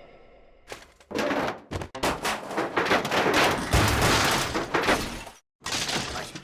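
A rapid flurry of cartoon crash and impact sound effects, many sharp hits in quick succession for about four seconds. It stops abruptly, then a shorter burst of hits follows near the end.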